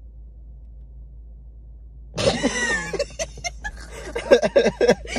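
A woman and a man burst into loud laughter about two seconds in, hers high-pitched and gliding, breaking into quick repeated bursts. Before it there is only a faint low hum.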